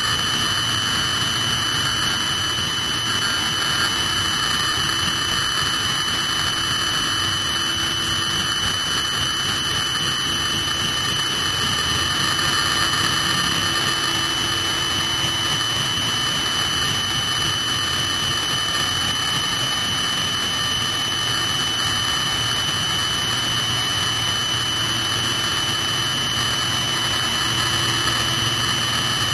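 Military helicopter's turbine engine running on the ground, a steady high-pitched whine over a lower hum.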